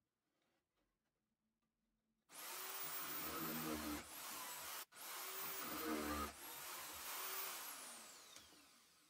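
Electric drill in a wooden drill stand boring a 9.5 mm twist bit through stacked plywood discs. It starts about two seconds in, stops for an instant near the middle, then runs lighter and winds down with a falling whine.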